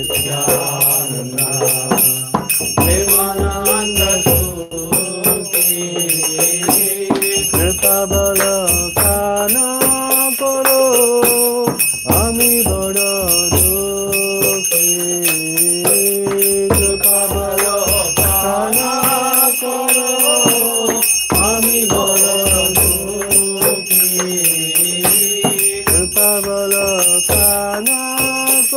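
A puja bell rung without pause during the deity worship, its steady high ringing over devotional music whose melody moves in held, stepping notes.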